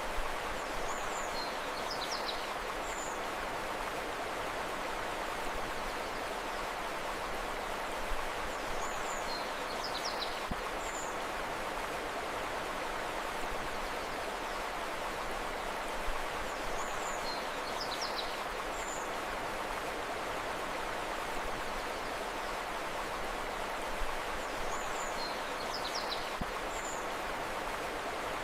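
Steady rushing of a flowing river, with a short phrase of high bird chirps recurring identically about every eight seconds, four times.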